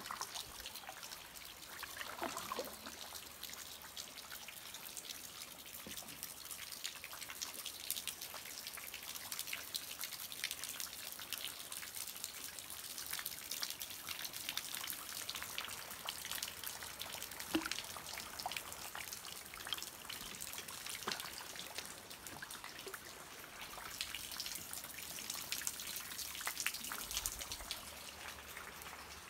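Water dripping and trickling onto the creek surface: many small drops and splashes over a steady hiss.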